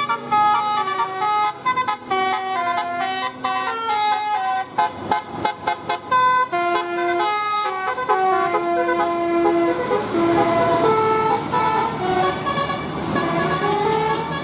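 A bus's telolet horn, a set of tuned horns, playing a tune of quick stepped notes. About halfway through there is a fast run of short toots.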